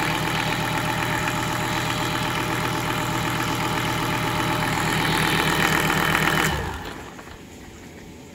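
Nanni 5.250TDI turbo marine diesel idling steadily, then shut off near the end and running down to a stop within about a second.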